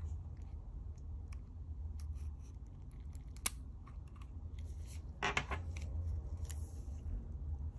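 Small tools and parts clicking and ticking as an iPod Classic is worked on, with a sharper click about three and a half seconds in and a brief scrape about five seconds in, over a steady low hum.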